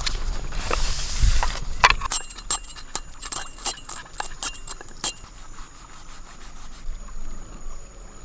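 A rustling rush of noise, then a quick irregular run of sharp clicks and clinks lasting about three seconds, fading to a faint steady background.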